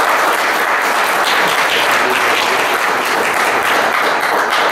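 Audience applauding steadily, a room full of people clapping.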